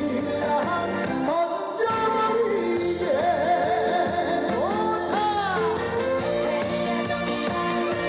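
Live trot song over a backing track: a pitched melody line with wide vibrato and swooping glides carried over steady accompaniment.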